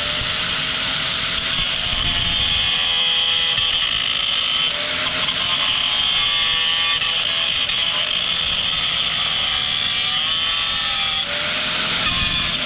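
Angle grinder grinding steel, grinding out the break in a cracked trencher boom to prepare it for welding. It runs steadily, its pitch dipping and recovering as the disc bites.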